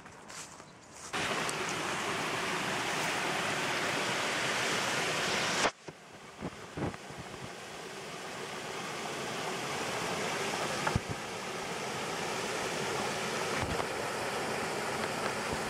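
Stream water rushing over a small weir and down a rocky channel. It starts abruptly about a second in as a steady loud rush, cuts off sharply about a third of the way through, then comes back quieter and grows slowly louder, with a few short knocks along the way.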